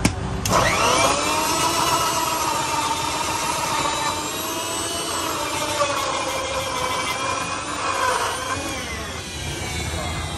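Electric juice blender switched on with a click. Its motor spins up with a rising whine about half a second later and runs steadily while blending pineapple, strawberries, mulberries and ice. It slows and winds down near the end.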